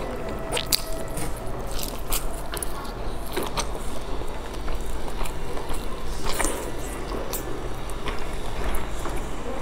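Close-up eating sounds: biting into and chewing a pan-fried dumpling, with scattered wet mouth clicks and smacks over a steady low hum.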